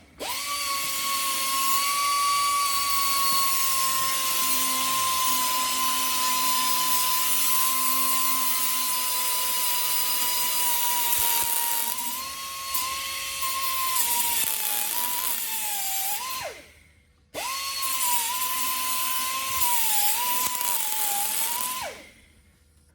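A high-speed power tool whining on metal, its pitch dipping several times as it is loaded. It winds down and stops about 16 seconds in, starts again a moment later, and stops near the end.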